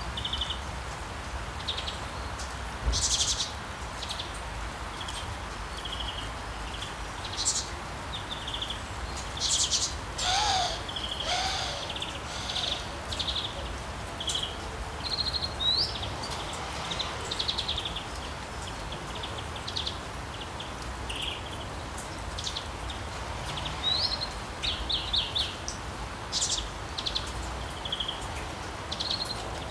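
Wild birds chirping and trilling, many short high calls with a few rising whistles, over a steady background hiss. A lower call comes twice, about ten and eleven seconds in.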